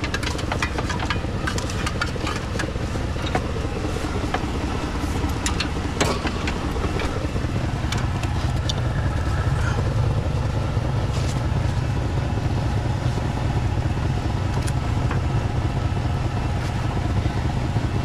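A Ford F-250's 6.2-litre V8 idling steadily under the work, getting a little stronger about eight seconds in. Over the idle come light clicks and metallic clinks of a hydraulic hose and its fittings being handled against the plow frame, mostly in the first seven seconds.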